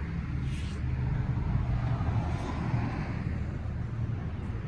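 Outdoor background noise: a steady low rumble with a hiss that swells and fades about halfway through.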